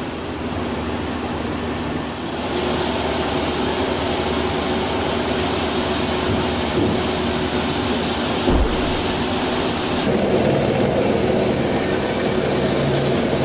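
Band saw running and cutting lengthwise through an ice core: a steady mechanical whir with a few held tones. It grows louder about two seconds in and shifts in tone about ten seconds in.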